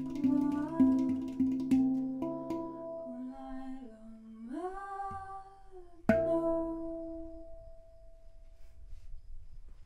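Handpan (pantam) played with struck, ringing steel notes while a woman's voice holds a note and slides it upward. A final hard strike about six seconds in rings out and fades away, closing the piece.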